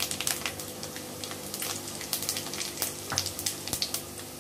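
Cumin seeds, dried red chillies and bay leaves sizzling in hot oil in a kadhai, a steady crackle with many small pops. This is a tadka (tempering) frying until the cumin browns.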